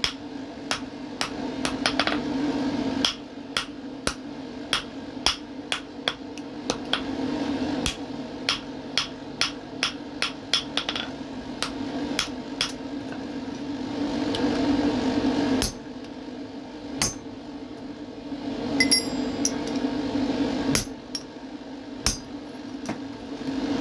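Hand hammer striking iron on an anvil in a steady rhythm of about two blows a second, with a few short pauses, over a steady low hum.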